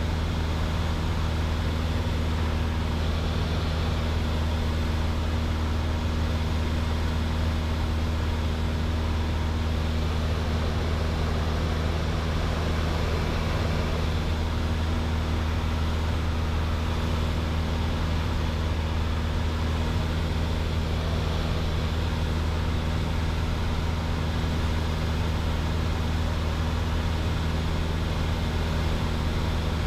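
Piper PA-28 Archer's engine and propeller droning steadily, heard inside the cockpit, with no change in pitch or power.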